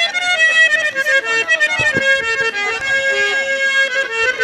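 Instrumental interlude of Haryanvi ragni folk music: a reedy, harmonium-like melody of held notes stepping from pitch to pitch, with no singing.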